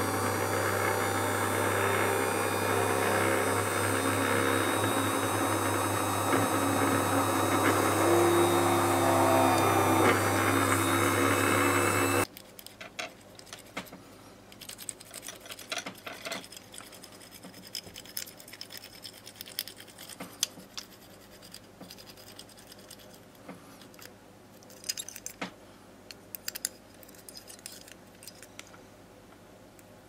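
Bench drill press motor running steadily with a fine bit drilling into the small metal insert of a Rollalite lighter, for about twelve seconds before stopping abruptly. Then faint small clicks and scrapes of hand tools on the lighter's metal parts.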